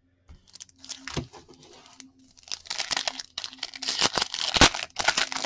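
A foil trading-card pack being torn open and crinkled by hand. The crinkling starts softly, gets louder about halfway through, and has one sharp crackle near the end.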